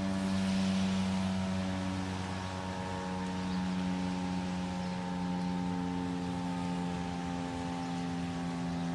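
Federal Signal STH-10A fire siren sounding, two tones at once, holding steady while its pitch slides slowly lower.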